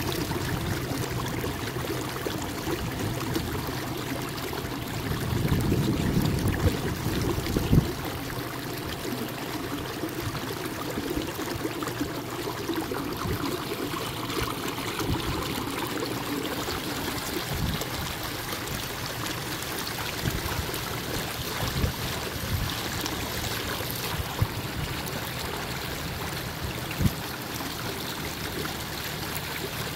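Kayak paddle strokes: water splashing and dripping off the paddle blades, louder for a few seconds near the start, with a few short knocks scattered through.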